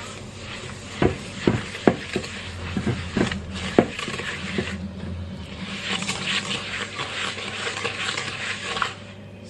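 A whisk stirring sugar and melted butter in a stainless steel bowl, knocking against the metal several times in the first few seconds, then a steady scraping swish as the mixture is beaten.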